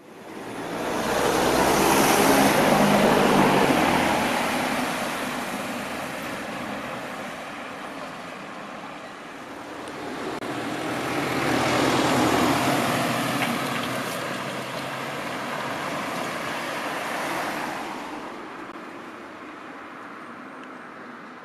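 Road traffic passing at a level crossing: two vehicle pass-bys, the louder about two to four seconds in with a low engine note, the second about twelve seconds in, then fading away.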